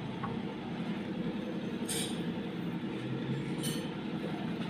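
Steady low mechanical rumble of a machine running, with two short hissing sounds, about two seconds in and again over a second later.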